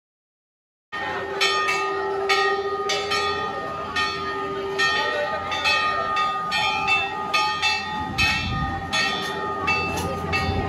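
Temple bells ringing repeatedly at a Hindu shrine, struck about twice a second with their ringing tones overlapping and sustained. The sound starts abruptly about a second in.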